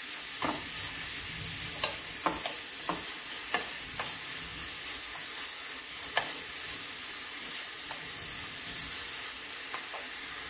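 Grated quince sizzling as it sautés in melted butter in a pan. The sizzle is a steady hiss, broken now and then by sharp clicks of the pan being stirred.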